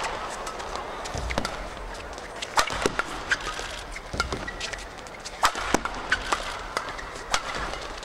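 Badminton rally: sharp racket hits on the shuttlecock at irregular intervals, mixed with the squeak and thud of players' shoes on the court, over a steady murmur of the arena crowd.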